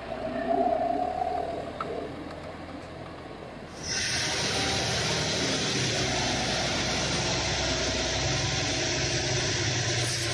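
Tractor engine running hard as it skids a log through mud. The sound jumps louder about four seconds in and then holds steady.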